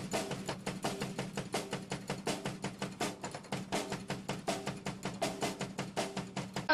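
Drum kit played with sticks: a fast, even beat of rapid strikes.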